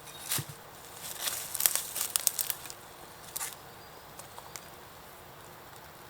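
Crinkling and crackling: a quick cluster of sharp crackles about a second in, with a few scattered clicks and ticks around it.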